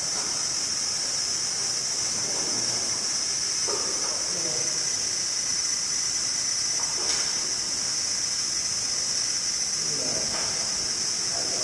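Steady high hiss, with quiet voices speaking briefly a few times.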